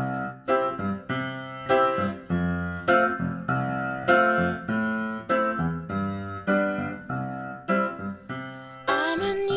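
Background music: a piano playing struck chords in a steady rhythm, about two a second. A singing voice comes in near the end.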